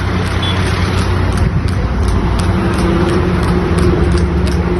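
A motor vehicle's engine running steadily at road speed, with road noise, and a regular light clicking about three times a second.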